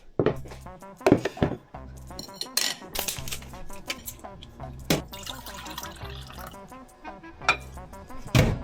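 Dishes and utensils clinking and knocking, a dozen or so sharp knocks, with some running water, over background music.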